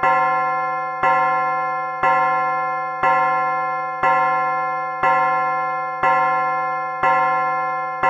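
Clock chime with a tubular-bell sound striking over and over, one ringing strike about every second, each fading before the next. It is the clock counting out the hour.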